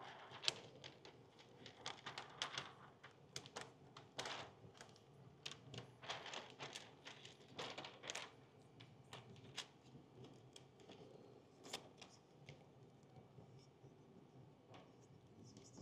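Window tint film crinkling and crackling as it is handled and laid onto wet car door glass: many quick irregular crackles, dense for the first ten seconds or so, then sparser and fainter.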